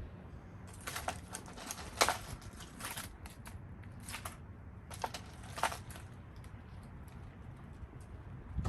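Rummaging through rubbish in a dumpster: clusters of rustling and clicking as items are moved about, the loudest a sharp clatter about two seconds in, over a low steady rumble.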